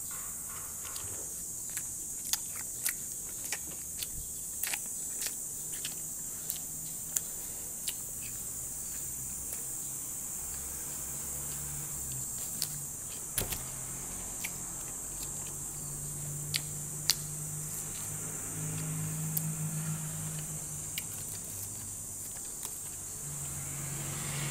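A person eating a burger: short, sharp mouth clicks and smacks from biting and chewing, scattered through and most frequent in the first half. Under them a steady hiss and a low hum that comes and goes.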